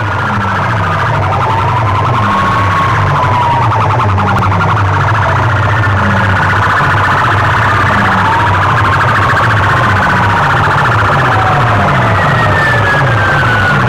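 A bank of horn loudspeakers on a sound-competition rig blaring an electronic siren effect, a slow wail rising and falling every few seconds. Underneath runs a repeating stepped bass pulse that quickens in the second half.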